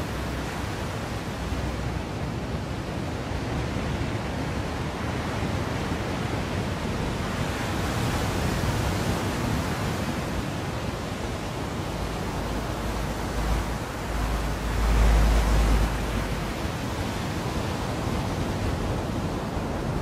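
Sea waves breaking and washing onto a sandy beach, with wind, as a steady rush of noise. About three-quarters of the way through comes a louder surge with a deep rumble.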